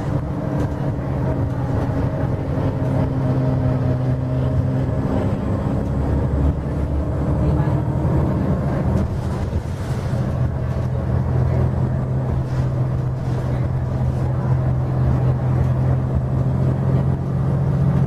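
Cabin sound of a Nova LFS city bus under way: its Cummins ISL straight-six diesel runs through a ZF six-speed automatic, with road rumble. The engine hums steadily; the note blurs into rumble partway through, then settles back into a steady hum.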